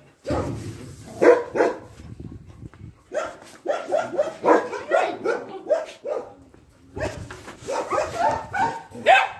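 Dogs barking in runs of short, quick barks, with brief pauses about two seconds in and again about six seconds in.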